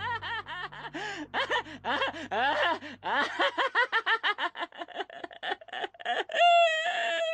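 A person laughing in quick bursts, each rising and falling in pitch, about four a second, ending in a longer held high-pitched cry near the end. Low background music fades out partway through.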